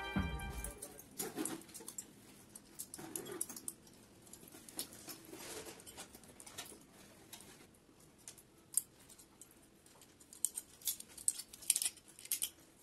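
Faint crinkling and clicking of thin aluminium beer-can strips being bent and folded by hand, with a quicker run of clicks near the end. A music ending dies away in the first second.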